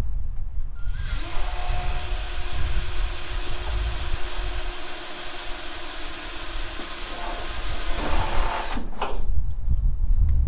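Electric drill with a small bit running steadily, drilling a pilot hole up through the underside of the car's hood at the dimple; it starts about a second in and stops abruptly near the end.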